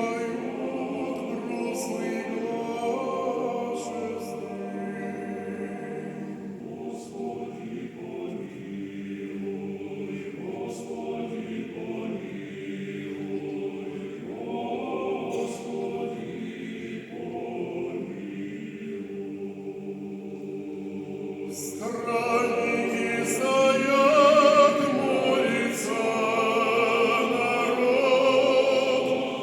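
Male choir singing sustained chords, softer at first and swelling louder about 22 seconds in.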